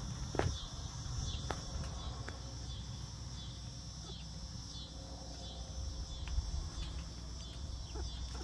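Steady high-pitched chirring of an insect chorus, with a few short calls from young hens foraging in the grass.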